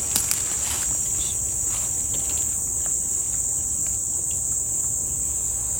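Steady, high-pitched, unbroken drone of a rainforest insect chorus (cicadas or crickets), over a low rumble.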